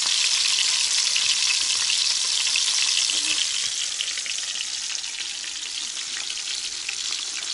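Pieces of fish frying in hot oil in a frying pan, a steady crackling sizzle that grows a little fainter in the second half.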